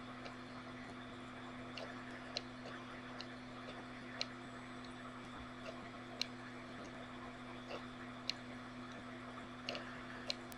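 Low steady hum under faint room hiss, with a few soft clicks scattered irregularly.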